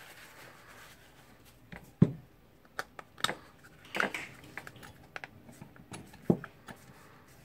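Plastic cover being handled and fitted onto a hand tool's housing: scattered small clicks and knocks, the sharpest about two seconds in and another near six seconds.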